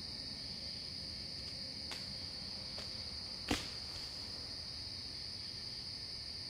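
Crickets and other night insects chirring steadily in a high pitch, with two faint ticks and then a single sudden sharp swish-like sound about three and a half seconds in, which the recordist wonders may be something slashing with a branch.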